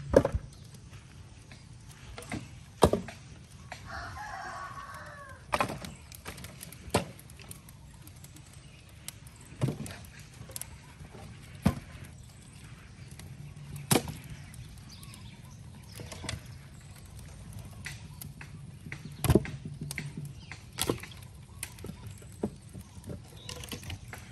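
Heavy logs knocking as they are dropped and set onto a stacked wood pile, a sharp wooden knock every second or few. A rooster crows once about four seconds in.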